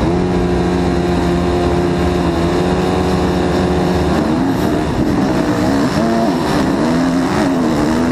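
Motocross bike engines held at steady high revs on the start line. About four seconds in they launch, and the engine pitch rises and falls repeatedly as the riders accelerate and shift up through the gears.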